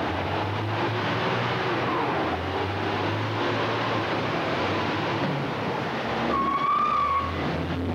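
Underground mine loader's diesel engine running as the machine moves toward a rock pile, a steady rumbling machine noise. A short high-pitched whine sounds about six and a half seconds in.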